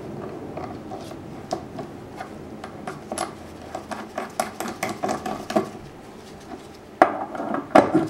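Small metal parts of a solenoid valve clicking and clinking as they are handled and fitted back together: the plunger tube onto the brass valve body, then the steel coil housing over it. The clicks come in quick irregular taps, with a few louder knocks near the end.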